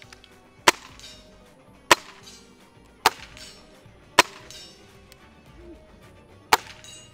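Air rifle shots: five sharp cracks, the first four about a second apart, then a pause of about two seconds before the fifth.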